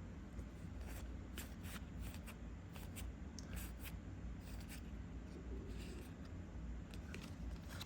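Trading cards being handled and flipped through, making soft scattered clicks and rustles over a low steady hum.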